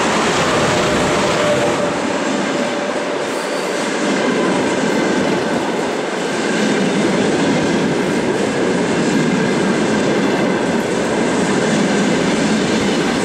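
Passenger train arriving at a platform: an EP1M electric locomotive passes close by, then its passenger coaches roll past with a steady noise of wheels on rails.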